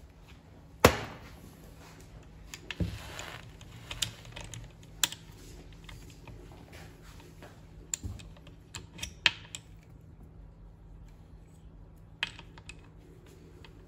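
Scattered sharp clicks and light knocks as engine parts and tools are handled during a small two-stroke engine repair. The loudest knock comes about a second in.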